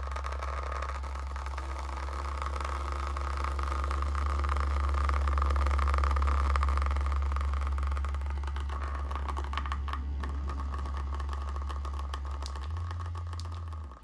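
Personal massager wand's vibration motor humming steadily, pressed against a cardboard holder to shake a sample tube as a makeshift vortex mixer. The hum grows a little louder toward the middle and shifts in pitch near the end.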